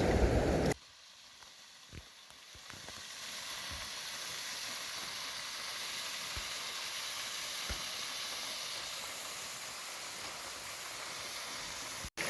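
Steady hiss of rushing water, high-pitched and even, building up over the first few seconds after a sudden cut, with a few faint clicks.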